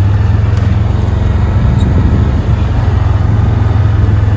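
Can-Am Outlander 650 ATV's V-twin engine running at a steady speed under way, a loud, even drone.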